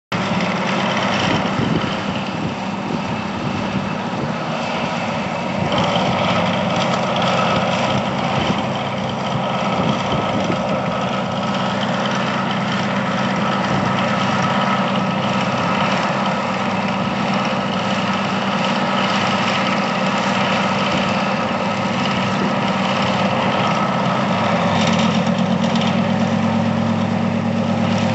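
Diesel engine sound for a scale model of a Monighan 10-W dragline, running steadily; the low note grows stronger near the end.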